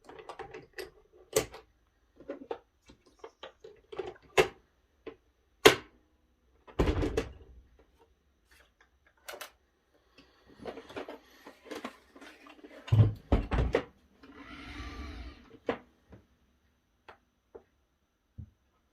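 Hands handling plastic parts and packaging: an irregular series of sharp clicks and knocks with some rustling, and heavier thumps about 7 and 13 seconds in.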